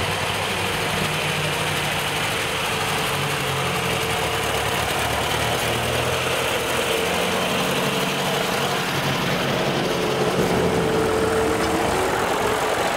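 Vintage tractor engines running at low speed as a line of tractors drives past one after another. The engine note is steady, with its pitch sliding as a tractor passes near the end.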